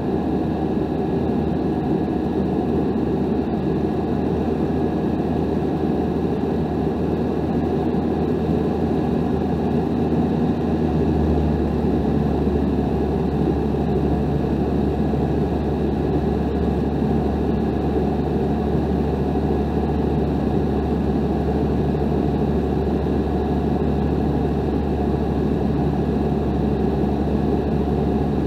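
Tecnam P2002 Sierra's Rotax 912 four-cylinder engine and propeller droning steadily in flight, heard from inside the cockpit with the hiss of airflow. The low drone grows a little stronger about eleven seconds in.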